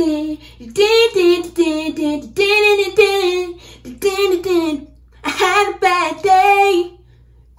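A woman singing unaccompanied, in short held phrases with brief breaks between them and a longer pause near the end.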